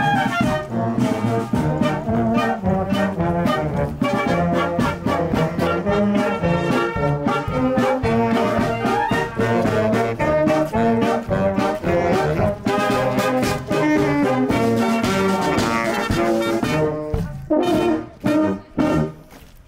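Marching wind band playing on the march: brass (euphoniums, trumpets) with clarinets, flutes and saxophones, loud and continuous, dropping away briefly near the end.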